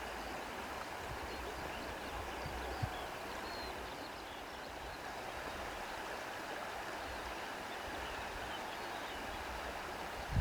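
Steady rushing of a flowing stream, with a few faint high chirps over it and a low thump at the very end.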